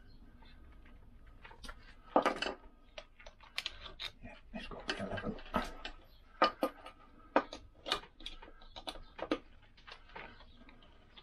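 Starting about two seconds in, a run of irregular metallic clinks and knocks as hand tools and metal parts are handled around a Lambretta engine's piston. The wrist pin is being pushed home into the heat-expanded piston and small end.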